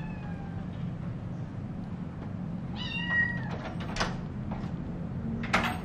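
Kitten meowing: a faint falling meow at the start and a clearer high-pitched meow about three seconds in. A few sharp knocks follow near the end, over a steady low hum.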